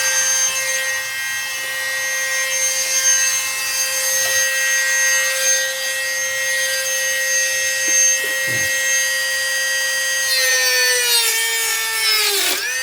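Electric power tool cutting through fiberglass panel, the motor running at a steady pitch with a rasping cutting hiss. Near the end the pitch sags as the tool bogs under load, then picks back up.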